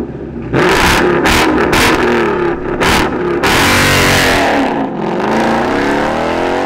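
A performance car's engine and loud exhaust revving and accelerating hard: several sharp bursts in the first three seconds, then a sustained full-throttle stretch, with the engine pitch dropping around five seconds in and climbing again.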